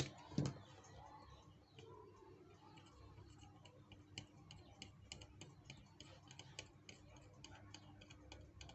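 Faint, irregular ticking and crackling of flux under a soldering iron tip as it is drawn across the screen connector pads on a phone's circuit board, with a soft knock right at the start.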